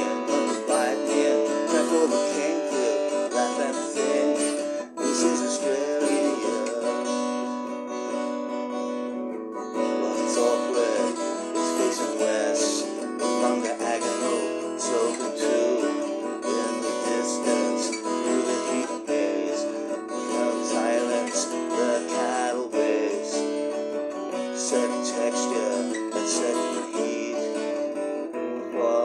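Acoustic guitar strummed in a steady rhythm, playing an instrumental passage without singing.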